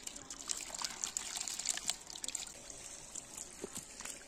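Shallow muddy pond water splashing and trickling as hands work through it: a quick run of small splashes and drips for the first two seconds or so, then sparser.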